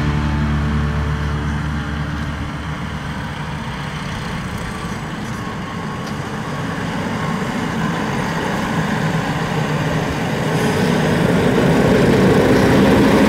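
Claas tractor running under load as it mows grass with a front-mounted disc mower, a steady engine and cutter noise that grows louder as the machine comes up close.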